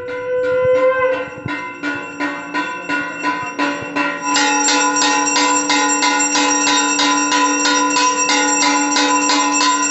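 Puja bells rung rapidly and continuously, about five strokes a second, with the ringing growing louder and brighter about four seconds in.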